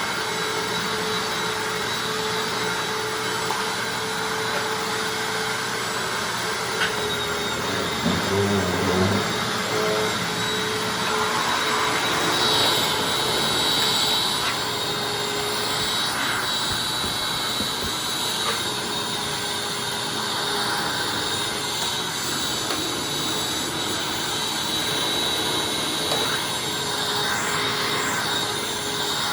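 Hoover Anniversary upright vacuum cleaner running steadily as it picks up a test mess, its motor note shifting now and then as it is pushed over the floor. A brief lower-pitched hum cuts in for about a second, roughly eight seconds in.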